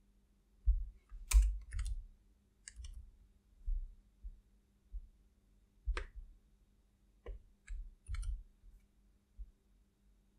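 Scattered computer mouse clicks and keyboard keystrokes, irregular and a second or so apart, each with a dull knock, over a faint steady hum.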